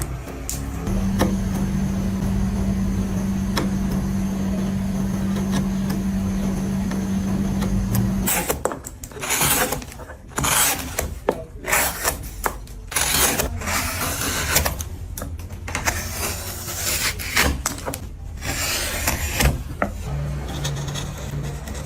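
A woodworking power tool's motor runs at a steady pitch for about seven seconds. It then gives way to irregular loud bursts of a tool cutting or abrading wood. Near the end a lower steady motor hum comes back.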